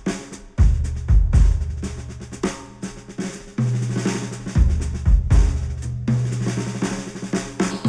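Instrumental music led by a drum kit with snare and kick hits over heavy sustained bass notes, played back through headphones and picked up by microphones on the headphone.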